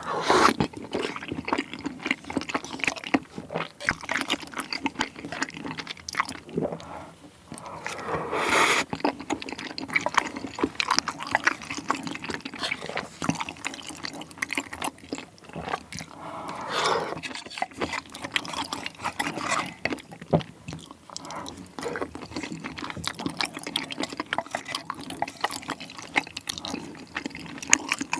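Close-miked wet eating sounds of spicy tteokbokki dipped in sauce: a dense run of sticky smacks, slurps and chewing clicks.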